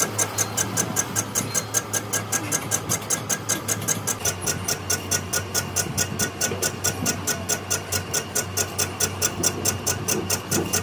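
Machine tool running during cylinder-head machining: a steady low hum with a rapid, even ticking of about five strikes a second, as of a rotating cutter.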